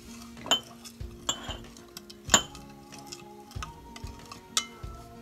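Kitchen utensils and dishes clinking: several sharp separate clinks, the loudest a little over two seconds in, over soft background music.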